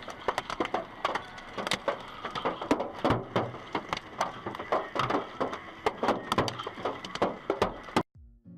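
Hailstones pelting a hard surface: a dense, irregular clatter of sharp cracks and knocks, several a second. It cuts off abruptly near the end.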